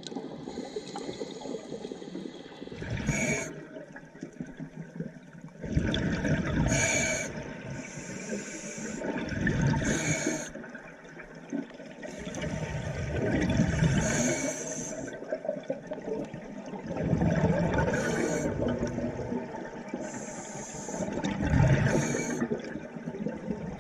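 Scuba diver's breathing heard underwater: bubbling surges of exhaled air from the regulator come about every three to four seconds over a steady rush of water noise.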